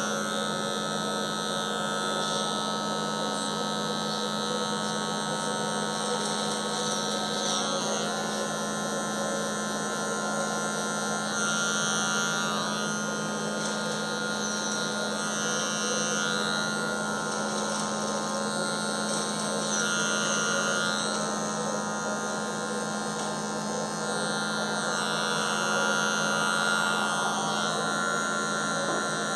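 Electric hair clipper running with a steady hum. Its tone shifts every few seconds as the blade is worked through short hair to fade it.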